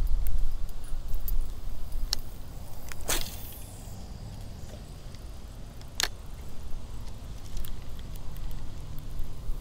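Wind buffeting the microphone in a low rumble, with three sharp clicks from handling the fishing rod and spinning reel. The loudest click comes about three seconds in and trails off into a short hiss.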